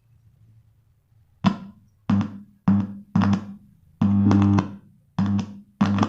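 Music played through a faulty small Bluetooth speaker with two drivers, sound not clear. After about a second and a half of quiet it plays a series of sharp, separate note strikes over a heavy low hum, then a held note near the end. The buzzing distortion is the fault being demonstrated.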